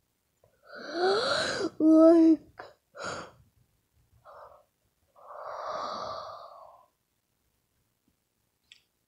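A person's breathy vocal noises rather than words. About a second in there is a breathy sound with a rising voiced tone, then a short voiced sound and a few short puffs. Around six seconds in comes a longer breathy exhale like a sigh.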